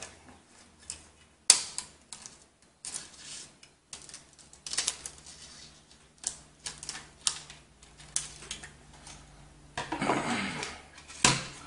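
Scissors snipping away excess plastic film on a graphics-card cooler's heatsink: a string of irregular sharp clicks and snips, with the film rustling, and a longer rustle near the end.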